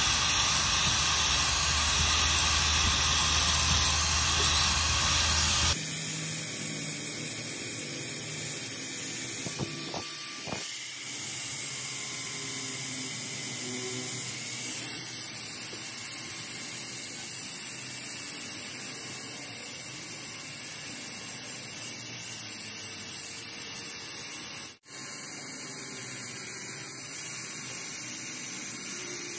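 Handheld angle grinder with an abrasive disc grinding the rusty metal of a pair of pliers, a steady hissing grind. The sound drops in level about six seconds in and cuts out for an instant near the end.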